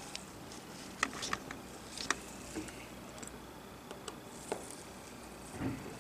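Faint, light clicks and taps, about one every second, from a small Phillips screwdriver turning a tiny screw out inside an iPhone 6.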